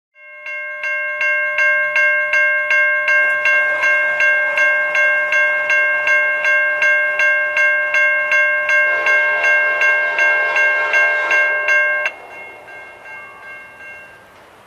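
Railroad grade-crossing warning bell ringing in steady, even strikes, about three a second, warning of an approaching train. It cuts off suddenly about twelve seconds in, leaving a fainter ringing that fades away.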